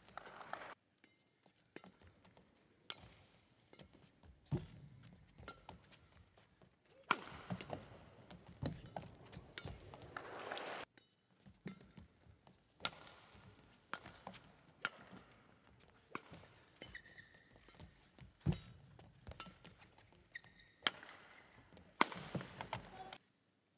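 Badminton rally: sharp racket strikes on the shuttlecock at irregular intervals, with footfalls on the court floor and short stretches of crowd noise between rallies.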